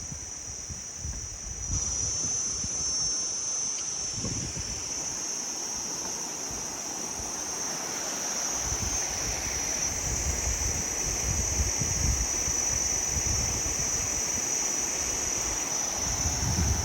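Forest insects buzzing steadily at a high pitch, with a rushing noise that swells about two seconds in and low gusts of wind buffeting the microphone.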